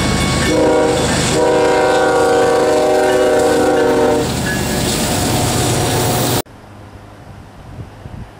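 Diesel locomotive air horn sounding a short blast and then a long one, several notes at once, over the rumble of the passing train. The train sound cuts off suddenly, leaving much quieter outdoor background noise.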